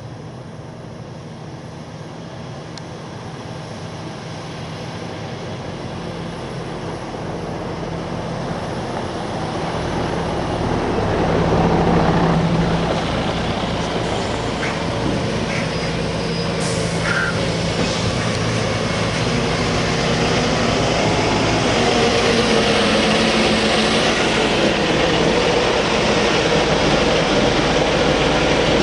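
Claas Xerion 4200 Saddle Trac tractor's diesel engine running under load while it pulls a Horsch Tiger cultivator through the soil, growing steadily louder as it comes closer, peaking about twelve seconds in, then staying loud.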